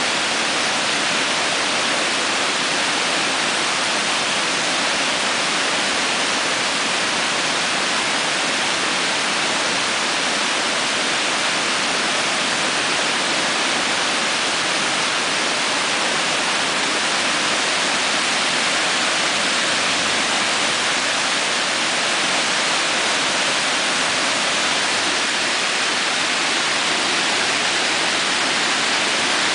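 A river in flood pouring over a low dam and rushing through the trees below it: a steady, unbroken rush of water.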